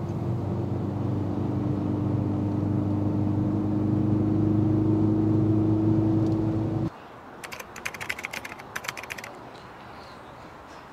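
Mercedes sedan's engine running at a steady pitch, cutting off abruptly about seven seconds in. Then a quick run of light clicks lasting about two seconds.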